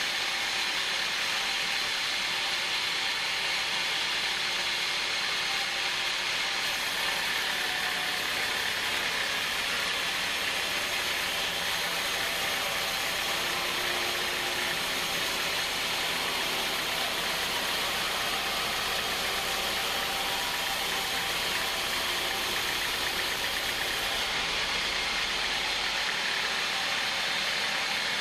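Sawmill band saw ripping lengthwise through a hardwood log on a rail-mounted carriage: a steady, unbroken cutting noise over the machine's running drive.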